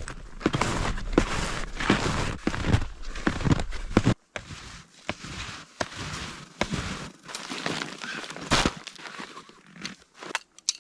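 Footsteps crunching through deep snow, a steady stride of about two steps a second. About four seconds in it drops abruptly to quieter, scattered crunches.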